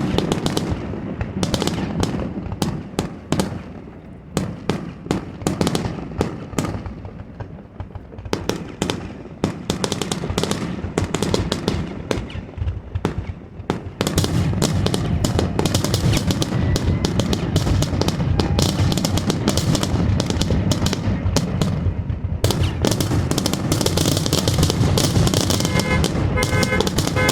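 Fireworks finale: aerial shells bursting in quick succession, thickening about halfway through into a near-continuous barrage of bangs and crackles. Near the end a pulsing alarm tone starts up, set off by the blasts.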